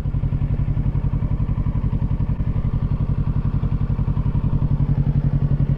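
Kawasaki Ninja 650's parallel-twin engine running steadily at low revs while the motorcycle rolls slowly, an even, fast pulsing exhaust note.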